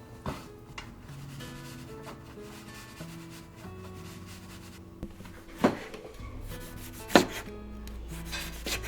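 Kitchen utensil sounds over soft background music: a low scraping or rubbing, and two sharp knocks about a second and a half apart.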